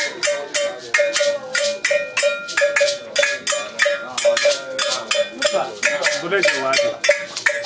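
A metal bell like a cowbell, beaten in a fast, steady rhythm of about five strokes a second, each stroke ringing at the same pitch.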